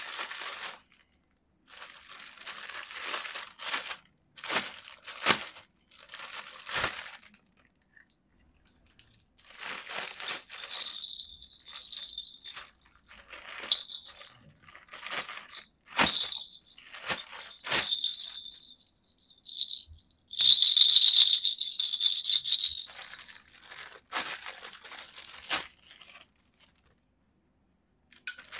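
Clear plastic toy packaging crinkling and tearing as it is handled and opened, in short bursts broken by sudden cuts to silence. A shrill, steady high squeal sounds over the rustling about eleven seconds in and again, loudest, about twenty seconds in.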